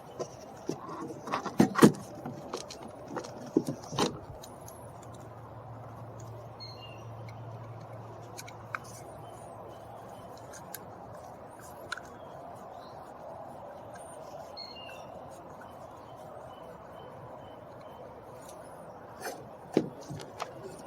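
Scattered clicks and knocks of a car door panel and its clips being handled and fitted: a cluster in the first four seconds, then a quiet stretch with a few faint high chirps, then more knocks near the end.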